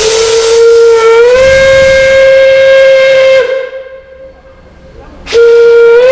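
Steam whistle blowing a long blast over a rush of steam hiss. The blast rises in pitch as it opens up and cuts off sharply, then a second, shorter blast sounds near the end.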